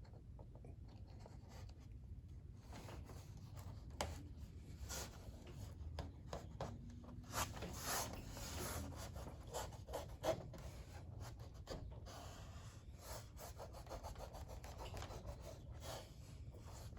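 Vinyl sticker decals being peeled from their backing and rubbed down by hand onto a wall board: faint, irregular scratchy rubbing strokes with a few light taps.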